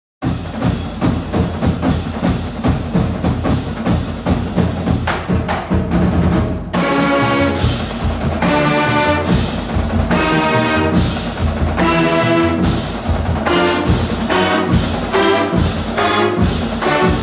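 Orchestral music with brass and percussion that starts suddenly: fast, repeated percussion hits at first, then held brass chords come in about seven seconds in.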